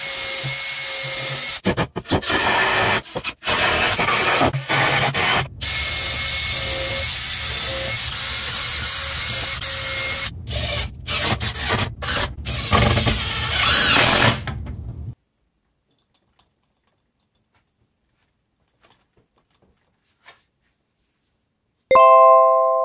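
Cordless brushless drill driving screws into a wooden table frame, running in spells with short stops for about the first fifteen seconds. After that it is nearly silent, and near the end a bright chime sounds and fades.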